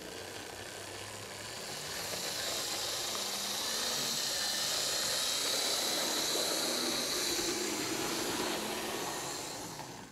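HO scale model of an NS 1300-class electric locomotive running on the track: a steady motor whir and wheels rolling on the rails. It grows louder over the first few seconds, then drops away and cuts off near the end.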